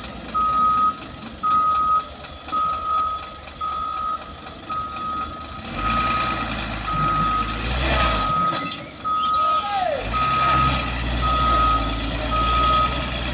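A heavy-vehicle reversing alarm beeps steadily at one pitch, about one and a half beeps a second. About six seconds in, a heavy diesel engine comes in under load, drops away for a moment just after eight seconds, then picks up again.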